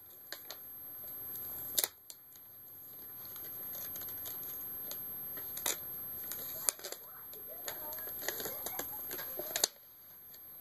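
Scattered sharp clicks and taps from laptop parts being handled while the screen assembly is taken apart, loudest about two, six and ten seconds in.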